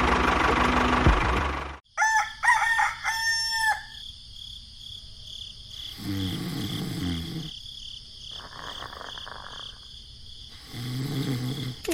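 An engine running, cut off abruptly about two seconds in. A rooster then crows, and chickens cluck softly twice later on.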